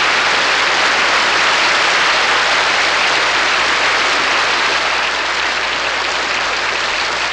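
Audience applauding steadily, easing off a little near the end.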